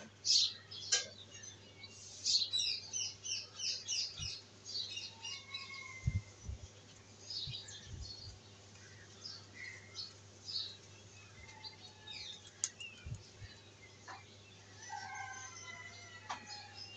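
Small birds chirping: a quick run of repeated chirps about four a second a couple of seconds in, then scattered calls. Underneath is a steady low hum, with a few dull low thumps in the middle.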